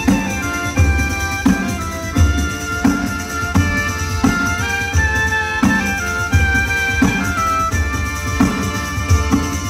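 Southern Italian folk music played live: a frame drum keeps a steady, even beat under a stepping melody.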